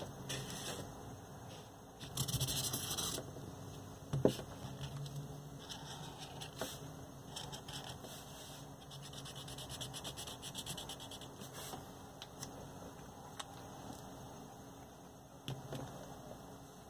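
Felt-tip marker scratching across corrugated cardboard as a small circle and icon are drawn and shaded in with quick repeated strokes, with a brief rustle about two seconds in and a light knock about four seconds in as things are handled on the board.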